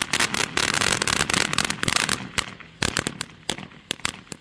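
A TNT Safari Bus fountain firework spraying with a dense crackle for about two seconds, then thinning to scattered separate pops.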